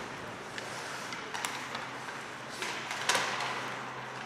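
Ice hockey rink noise: a steady hiss and low arena hum, broken by sharp knocks of sticks and puck. The loudest knock comes about three seconds in.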